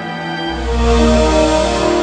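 Theme music. Sustained pitched notes, then a deep bass comes in about half a second in and the music swells louder.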